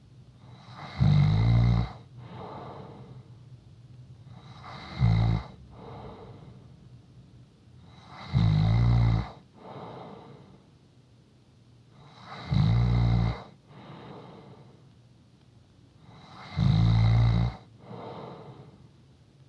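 A person snoring in a slow, even rhythm: five loud snores about four seconds apart, each followed by a softer breath.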